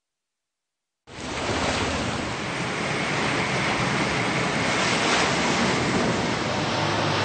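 Steady rush of sea waves and wind from a boat underway at sea, cutting in suddenly after about a second of silence.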